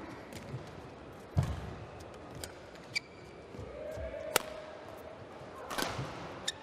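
Badminton rally in an indoor arena: sharp cracks of rackets striking the shuttlecock every second or so, with a heavy footfall thud about a second and a half in, over a low crowd murmur.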